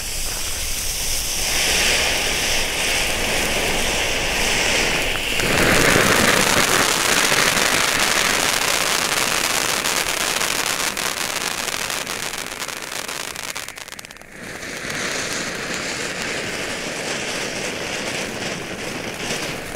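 Two Fun Pyramid volcano fountains (small ground fountains) spraying sparks with a continuous hissing, crackling rush. It grows louder about a second and a half in and again about five seconds in, dips briefly near the fourteen-second mark as the fountains change to their next effect, then picks up again.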